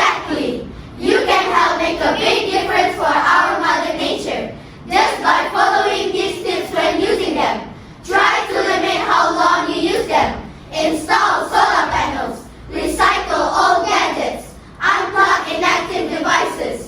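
A group of children's voices singing in unison, in phrases a few seconds long with short breaks between them.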